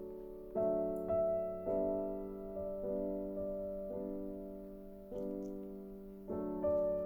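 Background music: soft piano notes struck one after another, each ringing and fading.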